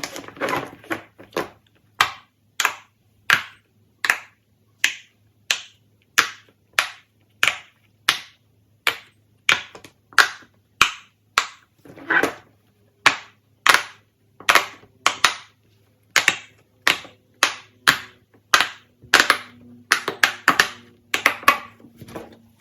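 A steady, even run of sharp snaps or pops, about three every two seconds.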